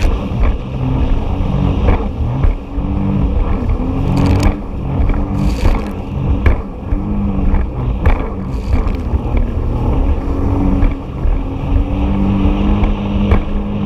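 Jet ski engine running under way, its note rising and falling, with the hull thumping over waves and water spraying onto the microphone several times.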